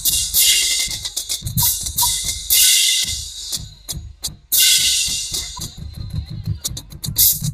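Marching drums playing a fast rhythm: bass drum strokes and crashes on a cymbal mounted on the bass drum, over quick snare drum strokes. The playing stops briefly about four seconds in, then resumes with more cymbal crashes.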